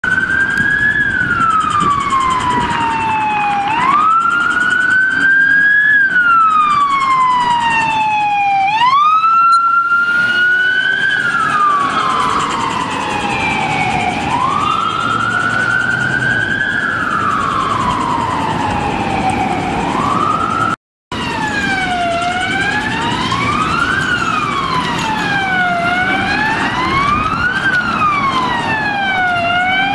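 Police vehicle sirens wailing, the pitch sweeping slowly up and down. After a brief drop-out about two-thirds through, a siren with a quicker, even rise and fall takes over, about one cycle every two seconds.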